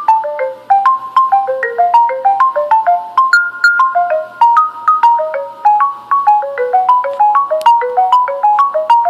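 A stock LG G4 ringtone playing on the phone: a quick, steady tune of short notes, about four to five a second.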